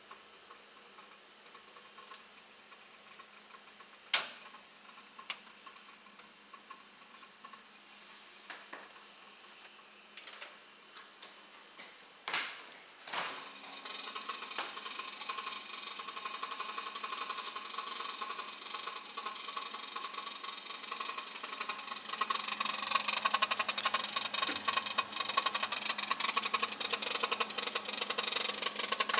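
A few sharp clicks of the refrigerator being handled and opened, then from about 13 s in a steady mechanical whir with fast rattling from inside the open freezer compartment. It gets louder near the end, close to the rear vents, where the fan sits.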